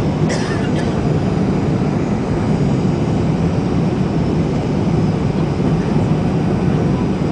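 Steady rumble of engine and airflow noise inside the cabin of a Boeing 737-800 airliner descending through turbulence, with a brief high-pitched sound about half a second in.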